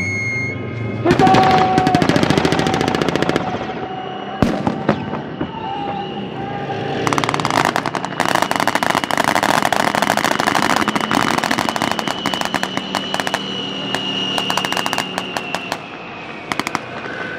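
Small-arms blank fire from Type 89 rifles and MINIMI light machine guns during an infantry assault: a fast volley of shots about a second in, a single shot a few seconds later, then dense, continuous rapid fire from about seven seconds in until near the end. A steady high tone sounds under the firing.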